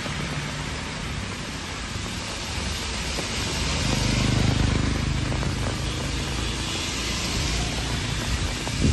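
Heavy rain falling steadily, with traffic driving on a wet road. A vehicle passes close about four seconds in, its low rumble and tyre hiss swelling and then fading.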